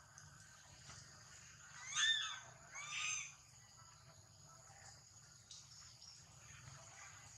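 Young macaque giving two short high cries about a second apart, each rising and falling in pitch.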